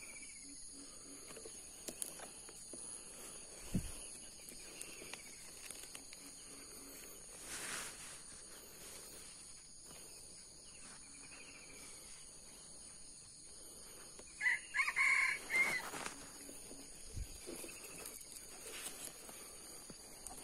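Junglefowl crowing: one loud crow a little past the middle, with fainter, more distant crows before and after.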